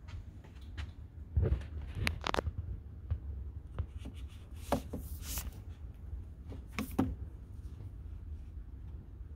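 Paperback books being handled on a metal library shelf: several knocks and short scraping rustles as the books are pushed aside and one is slid out of the row, over a steady low rumble.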